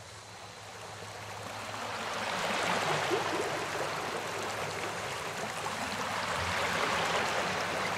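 Running water, like a stream, fading in over the first two to three seconds and then holding steady.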